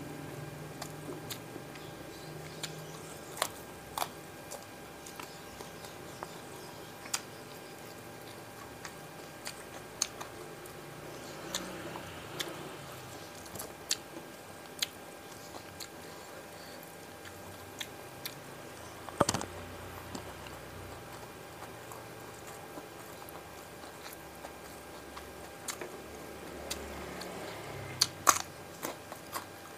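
Close-up eating sounds of a fried mujair (tilapia) meal with rice and sambal matah eaten by hand: chewing and mouth sounds with scattered small clicks, a louder crunch a little past the middle, and a crisp bite into a raw cucumber near the end.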